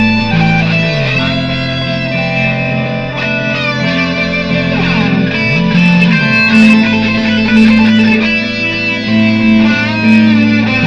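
Improvised electric guitar playing over looped guitar layers: held notes and sliding lead lines above a repeating bass pattern.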